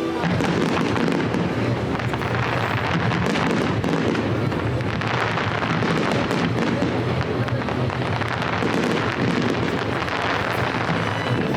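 Aerial fireworks bursting and crackling in quick succession, a dense, continuous crackle.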